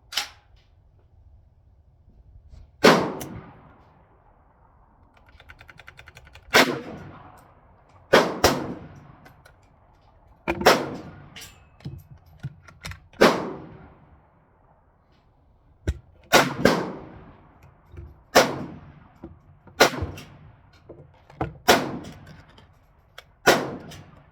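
Rifle gunshots, about a dozen sharp reports one to three seconds apart, each trailing off in an echo.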